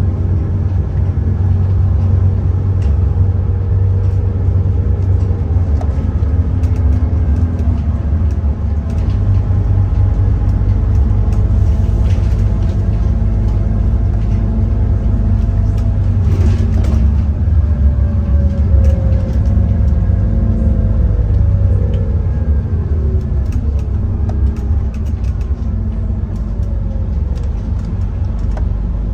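Scania N230UD OmniCity double-decker bus's five-cylinder diesel engine heard from on board while under way: a loud, deep drone whose engine note rises and falls several times as it pulls along the road.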